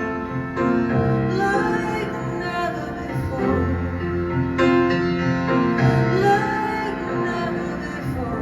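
Live band playing a slow song: piano chords under a woman's singing voice holding long, wavering notes.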